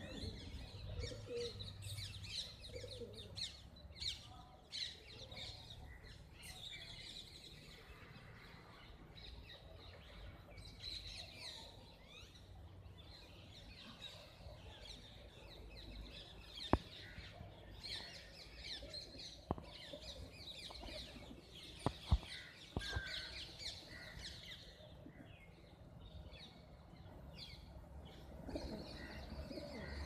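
Birds chirping and tweeting around a flock of feeding rock pigeons, with the odd flutter of pigeon wings. A few sharp clicks come about halfway through.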